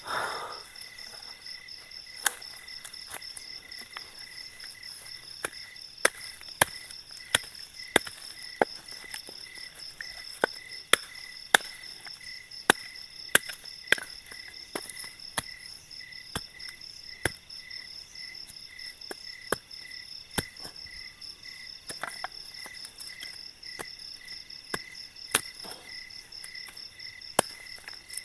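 Crickets chirping in a steady, pulsing chorus, over sharp irregular knocks of wood being chopped by hand.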